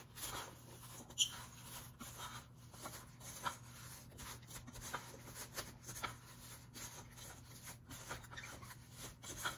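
A utensil stirring sliced apples in a stainless steel bowl: faint, irregular scraping and rubbing with occasional light clicks against the metal.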